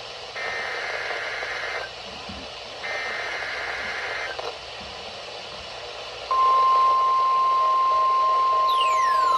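NOAA Weather Radio emergency alert broadcast: two raspy bursts of SAME digital header data, each about a second and a half long and a second apart, over radio hiss. After a pause of hiss, the steady 1050 Hz warning alarm tone comes on about six seconds in. Near the end, faint falling whistles sweep down across it.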